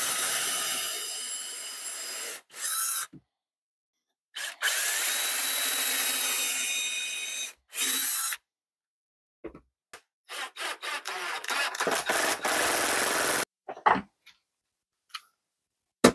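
Cordless drill driving screws into wood: a few long runs of several seconds and a string of short trigger blips, the sound easing off as each screw seats. A sharp knock comes at the very end.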